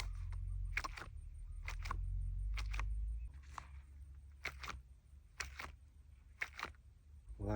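Sharp clicks or taps, mostly in pairs about once a second, over a low hum that fades out about three seconds in.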